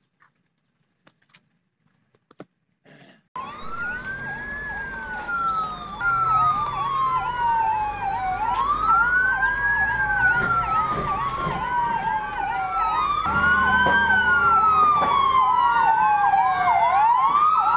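Emergency vehicle sirens from an ambulance and a fire engine. About three seconds in they start: a slow wail climbs quickly and sinks again over about four seconds, with a fast yelping siren over it at about three sweeps a second.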